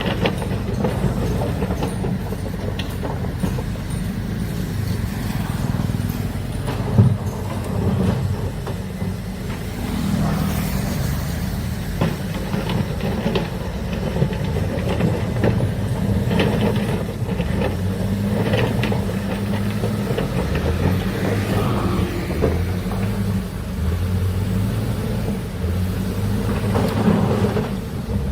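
Heavy excavator's diesel engine running under load, its low drone shifting up and down in pitch, with scattered metallic knocks and clanks from the working machine; one sharp knock about seven seconds in.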